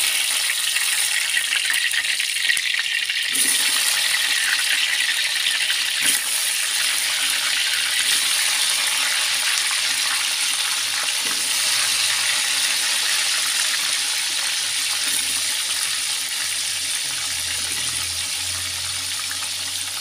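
Tempe slices sizzling as they deep-fry in hot oil in a wok: a steady hiss that grows louder about three seconds in, then slowly eases.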